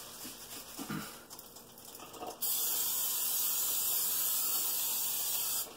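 An aerosol spray can hissing in one continuous spray of about three seconds onto the plates of an electric contact grill, starting and stopping abruptly. A faint knock or two comes before it.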